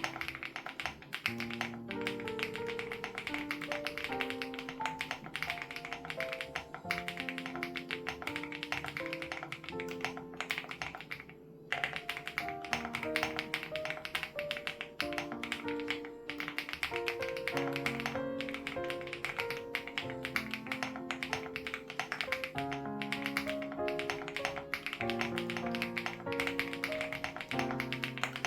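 Fast, continuous typing on a Crush80 Reboot mechanical keyboard with HMX Hyacinth switches, keystrokes clicking densely with a brief pause about eleven seconds in. Soft background music with held chord notes plays underneath.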